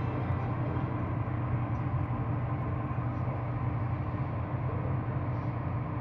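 Steady low rumble of airport ramp noise, with a faint steady hum on top.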